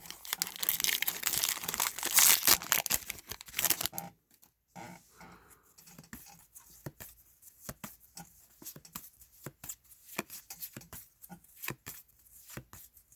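A trading card pack's wrapper torn open and crinkled for about four seconds, then scattered soft clicks and flicks as the cards are handled one by one.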